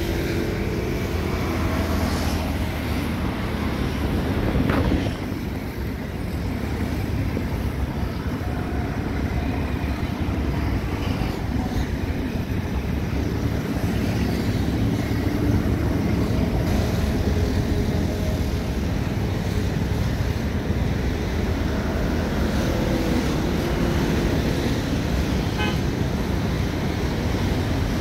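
Steady low rumble of distant engines, with faint short tones now and then.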